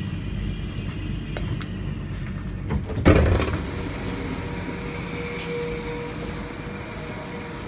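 Sprinter Light Train passenger door opening at a station stop: a steady rumble inside the train, two sharp clicks about a second and a half in, then a loud sudden burst of noise about three seconds in as the sliding door opens. Afterwards a steady hum with a held tone continues as the doorway gives onto the platform.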